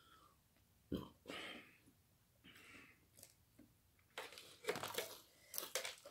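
Eating sounds from crispy breaded fried chicken: the coating crackles as it is torn and chewed, in a run of short crackly sounds near the end. A single sharp knock about a second in.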